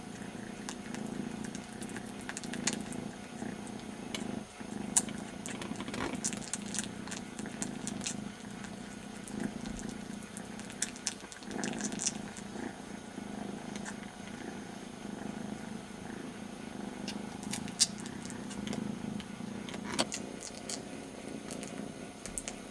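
Kitten purring steadily while it licks and suckles another kitten's ear as if nursing, with scattered small sharp clicks throughout.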